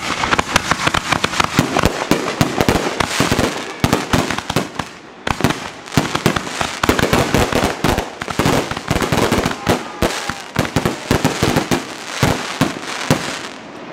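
Aerial fireworks bursting overhead in rapid succession: a dense run of bangs and crackling that eases briefly about five seconds in, then builds again and stops near the end.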